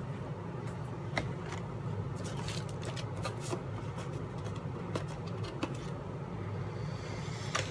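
Light rustling and scattered small clicks of objects being handled, over a steady low hum.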